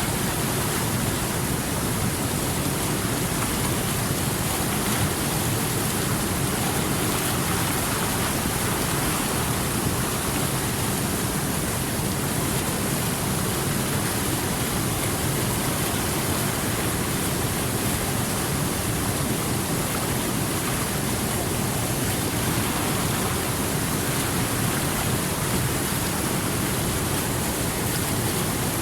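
Small stream of running water, a steady, even rushing and babbling with no breaks.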